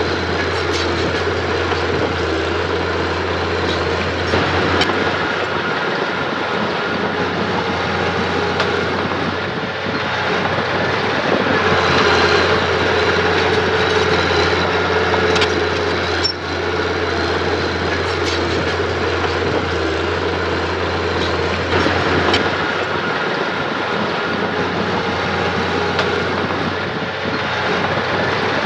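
Diesel engine of earth-moving machinery running steadily, its pitch rising a little twice, with scattered metallic clanks and knocks over it.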